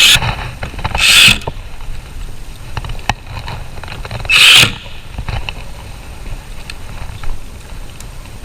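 Screws being driven in to fasten leveling feet to the base of a cabinet, in three short loud bursts: one at the start, one about a second in and one about four and a half seconds in, with small clicks and handling knocks between them.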